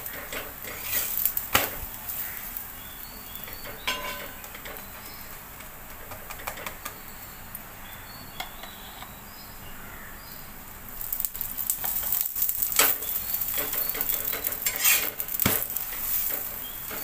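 Paratha sizzling on a hot tawa while a metal spatula presses, scrapes and taps it. The spatula clatter grows busier about two-thirds of the way in.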